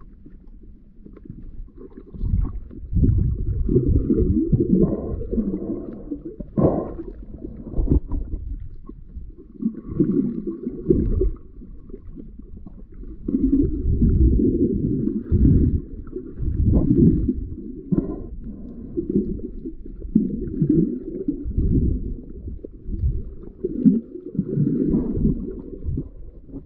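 Muffled underwater water noise picked up by a camera held below the surface: irregular low surges of sloshing and rumbling, each lasting a second or two, as the camera is moved through the water.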